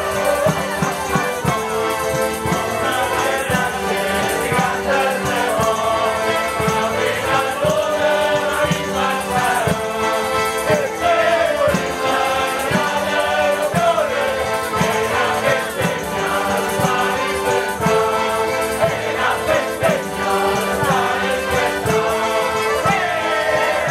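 Folk brigand song played on small accordions and large tambourines, with a crowd of men singing along in chorus. The accordions hold sustained chords while the tambourines beat a steady, even rhythm.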